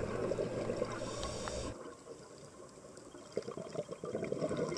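Muffled underwater bubbling and gurgling recorded on a dive, like the air bubbles from a scuba regulator. It turns quieter about two seconds in and builds back up near the end.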